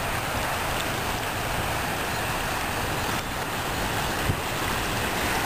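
Small waves lapping and washing up on a sandy shore, with wind buffeting the microphone.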